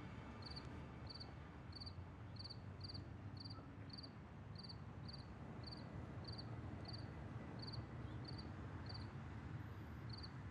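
Faint cricket chirping, a steady rhythm of about two short high chirps a second, over a low steady hum.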